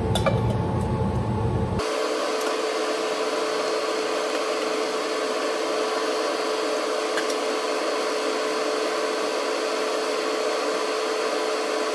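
Steady whir of a kitchen range hood fan, with a low rumble in the first couple of seconds as the pan is covered and a few faint clicks of the lid and utensils.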